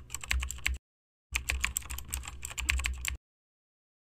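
Computer keyboard typing sound effect: rapid key clicks in two runs, with a short break about a second in, stopping about three seconds in.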